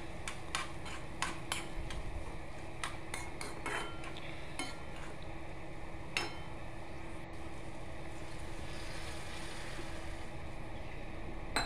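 Metal spatula scraping and clinking against a steel kadhai while stirring cluster beans, in scattered strokes over the first half, over a faint steady hum.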